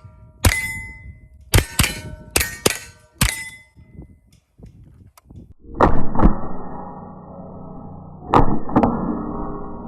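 .22 rimfire rifle shots fired in quick succession, each hit answered by a ringing clang from a steel target plate. There are six quick shots in the first few seconds. A couple of louder hits later leave a long, dense ringing that slowly dies away.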